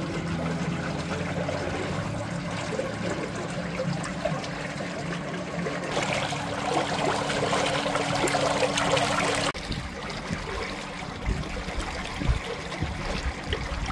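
Water splashing and trickling along the hull of a moving boat, over a thin steady hum. About two-thirds of the way in the sound changes suddenly: the hum stops and a few low knocks follow.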